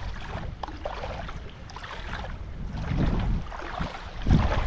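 Water sloshing and swirling around legs as people wade slowly through deep pond water with a soft mud bottom, swelling louder about three seconds in and again near the end.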